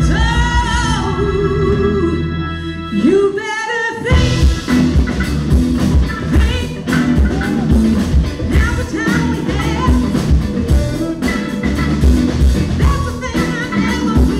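Live band with a female lead singer: sung notes held over sustained chords, a short break in the bass and drums with a rising vocal phrase about three and a half seconds in, then the full band with drums kicks back in.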